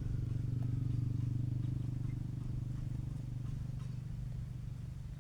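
A small engine running steadily with a low, rapid pulsing, easing off slightly near the end.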